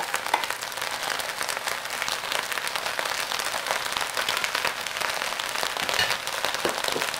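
Steady crackling sizzle of rice and chicken broth cooking down in an electric wok at medium heat, with a few soft knocks of a wooden spatula spreading sausage slices over it near the end.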